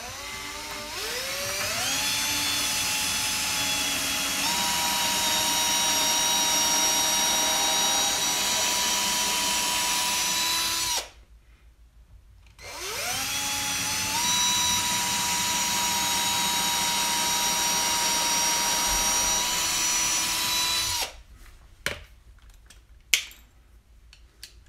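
Cordless drill boring two angled pilot holes through a 2x4 stud into the bottom plate, each run about ten seconds: the motor whine climbs in pitch as it spins up, then holds steady while the bit cuts, with a short pause between the two holes. A few light clicks follow near the end.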